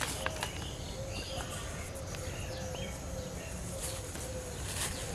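Birds calling: one repeats a short, low note about twice a second while others chirp higher over it, with a few faint clicks.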